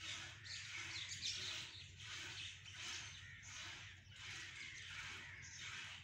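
Mynas chattering: a dense run of harsh chirps and squawks, pulsing about twice a second.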